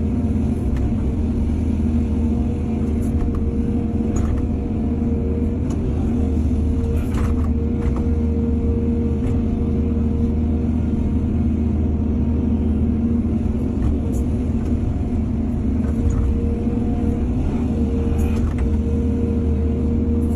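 Excavator's diesel engine running steadily, with a constant whine over a deep rumble and a few brief clanks.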